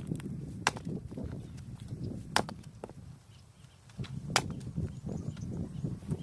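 Firewood being split: three sharp wood cracks about two seconds apart, over a low rumbling noise.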